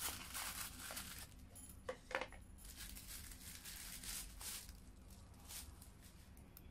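Paper gift packaging rustling and crinkling in a run of short strokes as it is handled and unwrapped, tailing off near the end.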